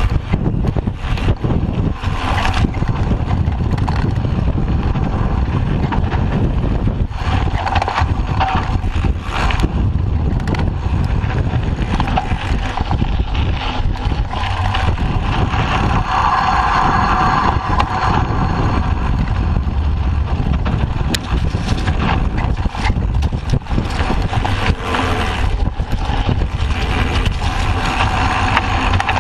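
Mountain bike riding a dirt singletrack, heard from a bike-mounted camera: steady wind rush on the microphone and the rumble of the knobby front tyre on the trail, with frequent knocks and rattles from bumps.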